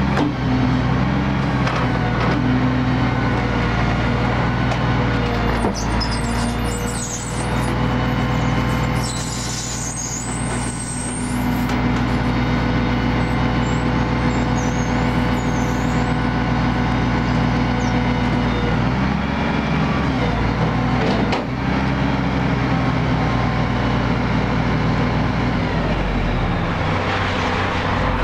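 Engine and hydraulics of a truck-mounted tree spade running steadily as the spade lifts a pine and its root ball out of the ground. The engine eases off briefly about a third of the way in, then picks up again.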